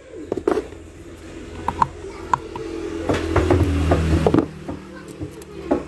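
Metal tweezers tapping and scraping at the flex-cable connector inside an opened smartphone: a scattered series of small, sharp clicks.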